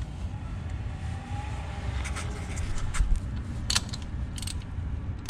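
Hand tools on an oil drain plug: a socket and extension, then a ratchet, threading the plug back into the engine's aluminium housing, giving a few sharp metallic clicks and taps through the middle. A steady low rumble sits underneath.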